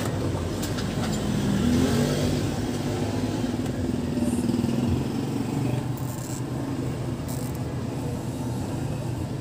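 A motor vehicle engine runs steadily in the background, its pitch rising briefly about two seconds in.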